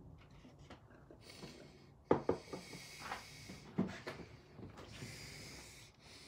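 Handling sounds on a kitchen counter: a few light knocks and some rubbing, starting about two seconds in, as a bottle is set down and things are moved about.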